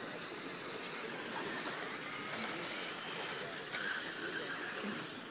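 1/10-scale electric 2WD RC buggies (17.5 class) racing on a dirt track: a steady hiss of electric motors and tyres on the dirt.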